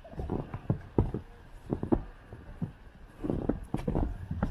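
Footsteps on packed snow, an uneven run of soft thuds about two a second.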